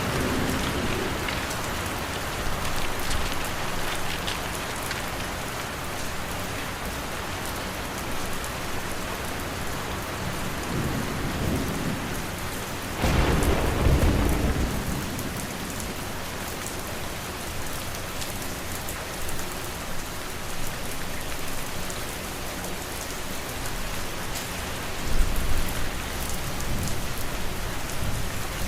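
Steady rain ambience with a low rumble of thunder about halfway through and a shorter rumble near the end.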